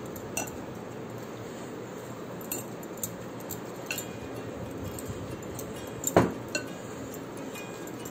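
Bangles on the wrists clinking against each other and tapping the glass mixing bowl as hands mix and press dough: scattered light clinks, with one louder clink about six seconds in.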